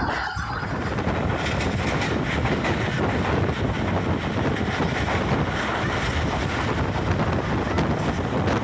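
Subak Raftar passenger train running at speed, heard from an open window: a steady wheel-and-rail rumble with wind buffeting the microphone.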